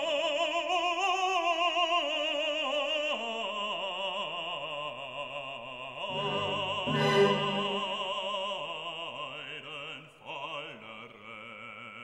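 Background music: classical operatic singing with a strong vibrato over an orchestral accompaniment. The music grows quieter near the end.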